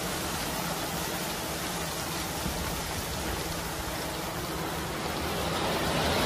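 Gravel pouring and sliding out of a raised Schwarzmüller tipper semi-trailer onto a pile: a steady, rain-like rushing hiss, with a low steady hum underneath.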